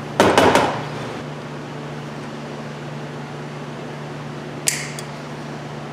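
Handling noise from the parts of a torn-down blower motor on a metal workbench: a brief clatter just after the start and one sharp metallic click near the five-second mark. Between them, a steady low hum from a fan or ventilation.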